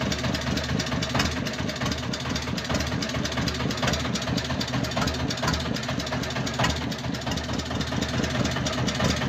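Fishing boat's engine running steadily with a low, rapid throb.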